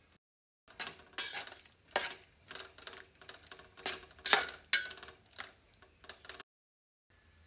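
Metal spoon stirring vegetable stew in a large metal pot, clinking and scraping against the pot's sides and bottom in a quick, irregular run of knocks.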